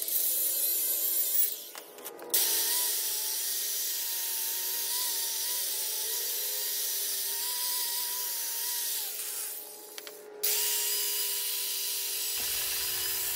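Power tool cutting through metal bar stock: a steady high hiss with a motor whine that wavers under load. The cutting eases off briefly about two seconds in and again near ten seconds, then picks up again sharply each time.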